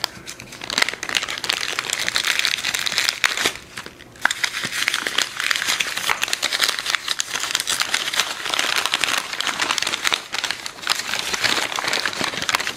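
Packing paper and a small plastic bag being handled and unwrapped by hand: dense crinkling and crackling, easing briefly about four seconds in.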